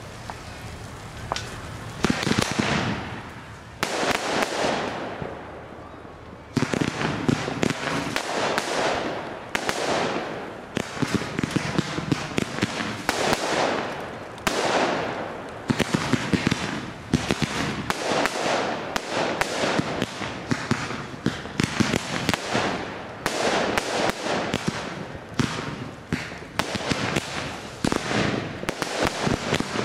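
Fireworks display: shells bursting in sharp bangs, each with a fading echo. A few come at first, then from about six seconds in they come thick and fast in rapid volleys.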